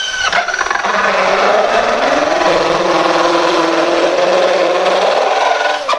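Cordless drill spinning a small toothed circular saw blade through a plastic oil bottle: a steady rasping cutting noise over the motor's whine. It stops suddenly near the end.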